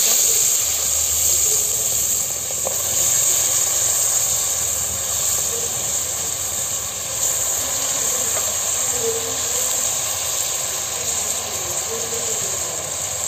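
Chicken pieces frying in hot oil in an open pressure cooker: a steady sizzling hiss.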